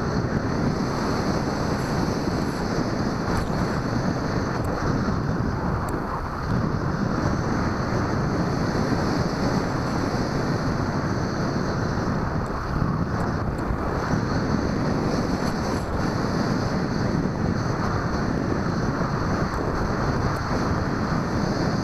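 Steady wind rush on the microphone of the onboard camera of a Bixler 2 RC foam plane in flight, with no motor whine.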